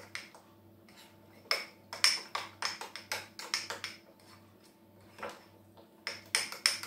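Spoon clinking quickly against the sides of a small ceramic bowl while stirring lemon juice into a thick yogurt-and-mayonnaise garlic dip. There are two bouts of stirring, the second starting about six seconds in.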